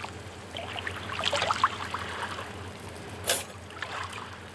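Liquid pouring with a short gurgle, then a single sharp clink a little over three seconds in.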